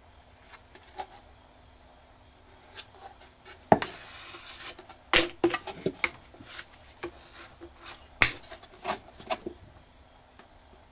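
Wooden spatulas (hera) working sabiji lacquer paste: a short rasping scrape about four seconds in as a spatula is scraped across the lacquered work board, then scattered sharp clicks and taps of the spatulas against the board and the lacquered box. The sharpest clicks come just before the scrape and about eight seconds in.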